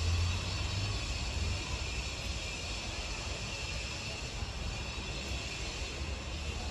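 Steady outdoor background noise of the surrounding city: a low rumble with an even hiss. The rumble is heavier for about the first second and a half.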